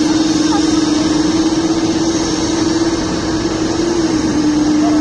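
Heavy machinery engines running steadily, a constant mechanical drone with a steady hum that dips slightly in pitch a little after four seconds in.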